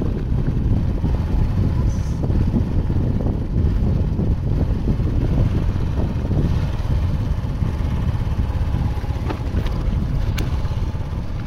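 Wind buffeting the microphone: a loud, low, unsteady rumble.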